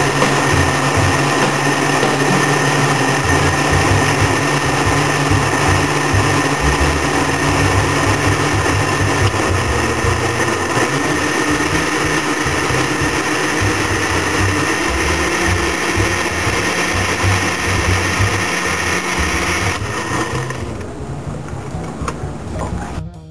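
Countertop blender motor running steadily, puréeing strawberries and other fruit into a smoothie. It is switched off about 20 seconds in, and the sound drops sharply.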